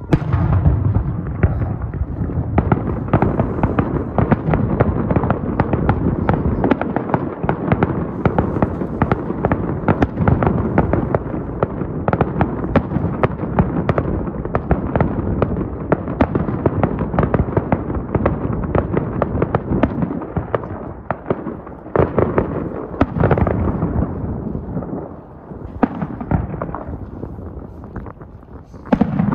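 Aerial fireworks shells bursting in a dense, continuous barrage of booms and crackles, starting with a deep boom. The barrage thins a few seconds before the end, then another loud burst comes.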